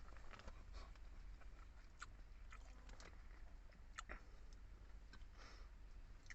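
Faint close-up chewing and mouth sounds of a person eating pork sinigang, with a few sharp clicks about a second apart, over a low steady hum.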